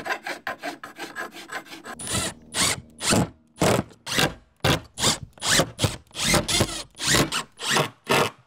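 A hand file rasps in quick, even strokes across the end of aluminium square tubing for about two seconds. Then a cordless driver runs in about a dozen short bursts, driving screws through the tubing into plywood.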